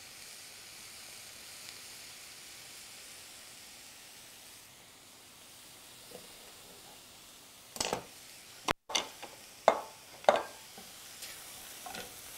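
Chopped vegetables sizzling in a sauté pan on a gas burner, a faint, steady hiss. In the second half come a few sharp knocks of a chef's knife on a cutting board.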